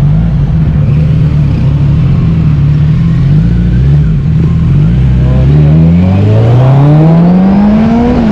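Kawasaki Z900's inline-four engine idling steadily, then pulling away, its note rising smoothly through the last three seconds as the bike accelerates.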